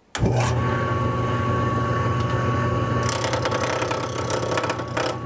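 A wood lathe switched on, its motor starting abruptly and then running steadily with a low hum and a thin high whine. About three seconds in, a louder hiss joins as the gouge starts roughing the spinning wood blank.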